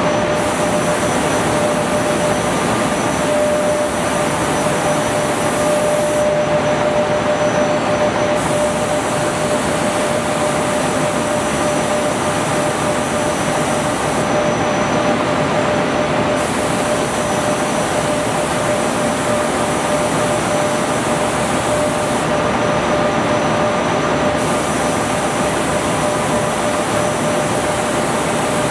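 Pull-up diaper production machine running on a trial run: a steady mechanical whir with a constant hum tone. Its high hiss drops out for about two seconds roughly every eight seconds.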